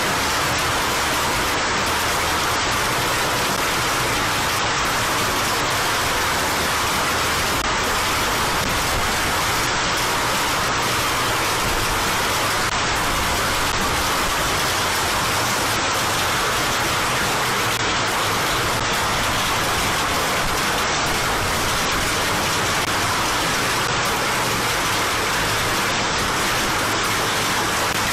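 Heavy rain and hail falling steadily, an even, unbroken hiss.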